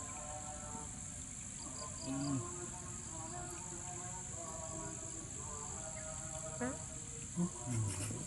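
Steady high-pitched chorus of insects, crickets among them, with a few brief low sounds about two seconds in and again near the end.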